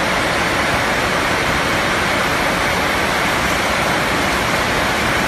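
Steady workshop machinery noise: a loud, even hiss that does not change.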